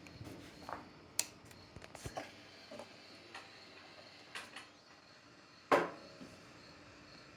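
A few separate sharp clicks and knocks, the loudest about six seconds in, over crickets chirping steadily. No engine running or cranking is heard.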